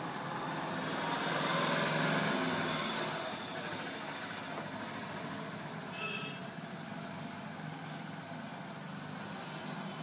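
Motor traffic noise: a vehicle's engine passes, loudest about two seconds in, then a steady hum of traffic. A short high-pitched tone sounds about six seconds in.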